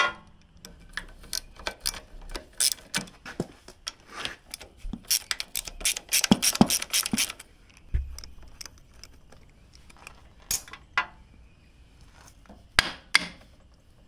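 Ratchet wrench clicking in short runs while loosening the valve cover bolts on a Briggs & Stratton mower engine, with a fast run of clicks about halfway through and a few single sharp clicks near the end.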